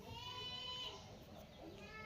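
A baby's high-pitched squealing call, drawn out for about a second, with a fainter call starting near the end.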